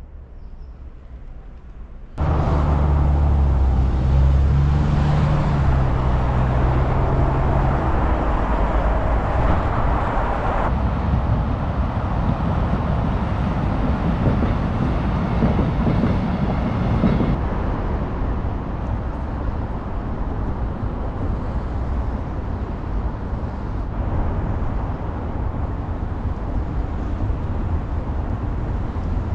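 City street traffic: motor vehicles running close by, starting suddenly about two seconds in with a heavy engine's low, steady hum that fades out by about eight seconds in, leaving a steady rumble of traffic.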